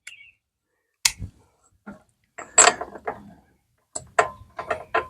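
Ratchet, socket and long extension clicking and clinking in short, irregular bursts as a spark plug is worked loose and backed out of a lawn tractor engine.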